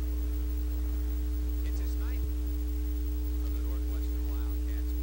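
Steady electrical hum with two steady higher tones above it, loud over faint voices. There is a single click a little past two seconds in.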